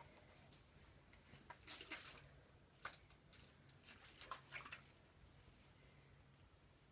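Near silence: room tone with a few faint, scattered clicks in the middle.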